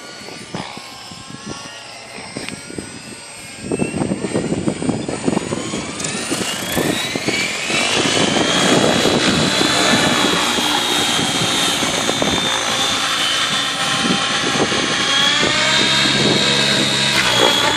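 A large radio-controlled helicopter spooling up: its motor and rotor whine rises steadily over about six seconds, then holds at one pitch. The rushing beat of the rotor blades grows loud from about four seconds in and continues as it lifts off and flies.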